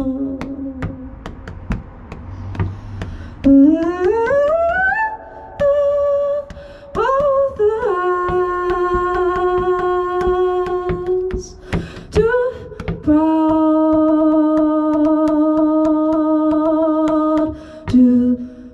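A woman's voice singing wordlessly into a handheld microphone, humming long held notes, with a rising slide a few seconds in and short breaks between phrases.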